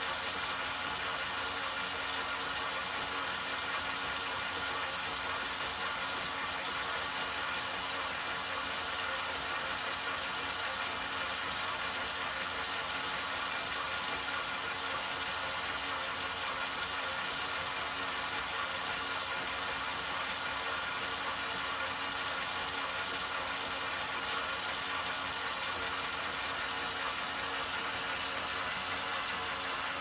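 enMotion automatic paper towel dispenser's small electric motor running steadily, a continuous even hum.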